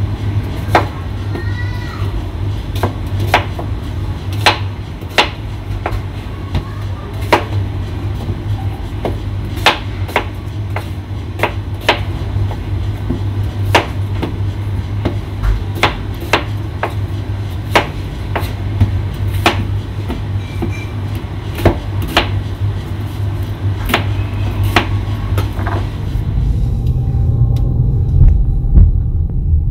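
Kitchen knife cutting whole peeled onions on a plastic cutting board, sharp irregular knocks about once a second over a steady low hum. Near the end this gives way to the low rumble of a car driving, heard from inside the cabin.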